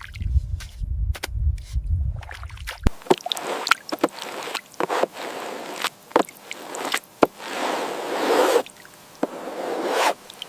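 A low rumble with scattered clicks, then, after an abrupt change about three seconds in, wet sloshing and splashing with repeated sharp knocks.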